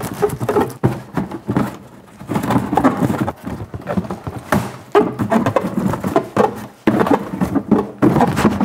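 Hands scratching and tearing at the packing tape on a cardboard box, with thumps of the box and wordless straining grunts.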